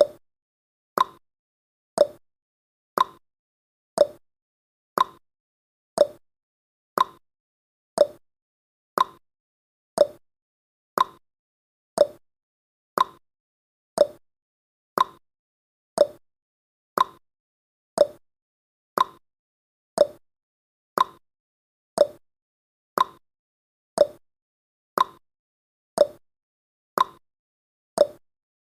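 Countdown timer sound effect: a short tick once every second, evenly spaced, each dying away quickly into silence.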